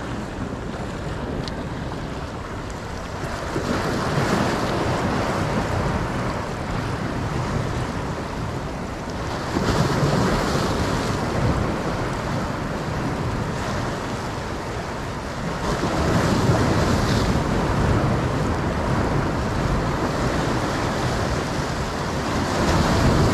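Sea waves breaking and washing over the rocks of a breakwater, the surf swelling louder about every six seconds.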